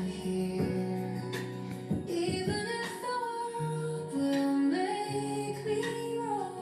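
Background song: a woman singing long held notes over a soft instrumental accompaniment.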